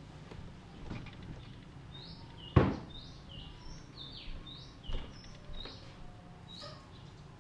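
Birds chirping in the background: short rising notes repeated many times over a steady low background noise. A sharp knock about two and a half seconds in is the loudest sound, with a softer one near five seconds.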